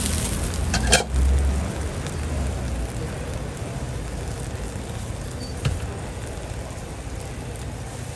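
Wok of cabbage cooking over a stove flame: a steady hiss and low rumble of the burner and the simmering liquid. A sharp knock comes about a second in, and a lighter one near six seconds.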